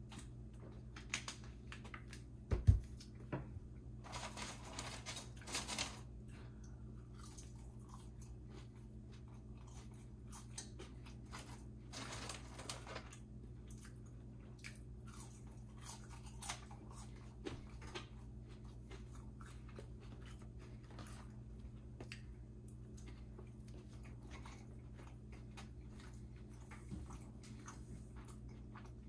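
A person eating fast food close to the microphone: chewing and biting, with many small clicks, one sharp thump about two and a half seconds in, and longer noisy stretches around four to six seconds and twelve seconds in.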